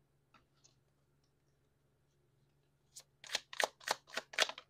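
Deck of tarot cards being shuffled by hand: a quick run of about eight crisp card snaps starting about three seconds in.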